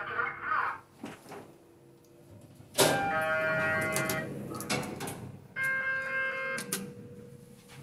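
Mitsubishi lift car sounding two steady electronic tones, the first about 1.5 s long and the second about 1 s, with a few sharp clicks between them.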